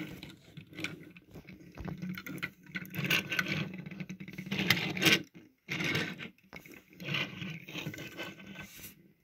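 Handling noise from hands moving die-cast toy cars and plastic blister packaging: irregular scraping and rustling with a few light knocks.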